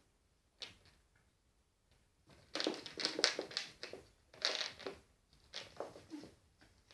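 Dry twigs rustling and scraping over a wooden floor as two cats scuffle with them, in a few scratchy bursts: a short one near the start, then a busier stretch from about two seconds in.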